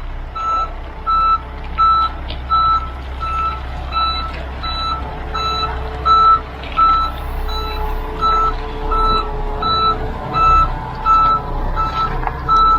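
Dump truck backing in: its reversing alarm beeps steadily, about one and a half times a second, over the low rumble of its running engine.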